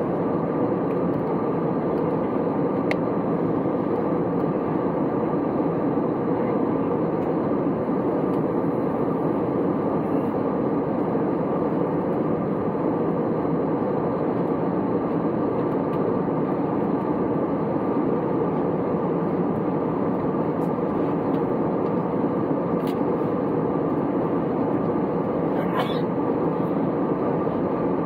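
Steady cabin noise of an Airbus A320neo in flight: the even rush of engines and airflow heard inside the cabin, with a faint steady hum and no change in level.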